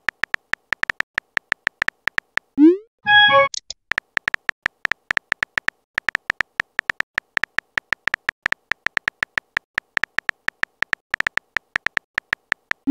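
Phone keyboard typing sound effect: rapid short tapping ticks, several a second, each with a small beep. About two and a half seconds in, a rising whoosh of a message being sent is followed by a short pitched chime. The typing ticks then resume, and another rising whoosh starts right at the end.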